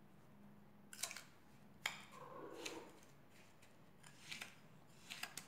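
Faint, scattered clinks and soft scraping of a metal spoon against a small glass bowl, stirring a gritty paste of sugar and coconut oil. The sharpest clink comes a little under two seconds in.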